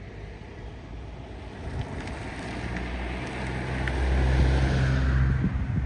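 A road vehicle approaching along the road, its engine hum and tyre noise growing steadily louder, loudest about four to five seconds in.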